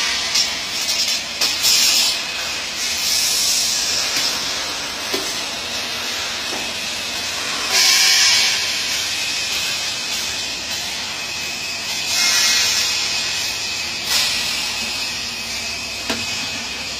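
MIG welding arc hissing steadily, with louder surges every few seconds.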